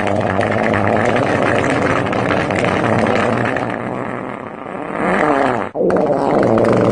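Fart sound effect: a long, continuous run of low, rapidly sputtering flatulence noises. It dips about two thirds of the way through and cuts out briefly near the end.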